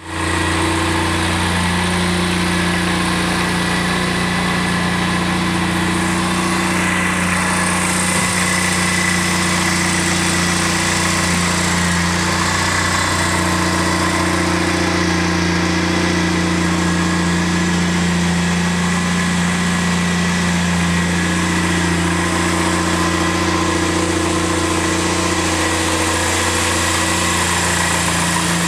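Suzuki Burgman 650 maxi-scooter's parallel-twin engine idling steadily, holding an even pitch with no revving.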